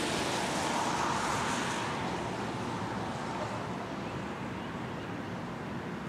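Steady rushing outdoor noise of wind and road traffic, easing off slightly after about two seconds.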